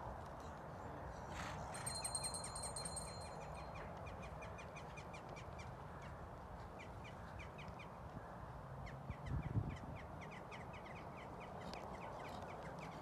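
A bird calling outdoors in quick rattling runs of short notes, with a dull thump about nine and a half seconds in.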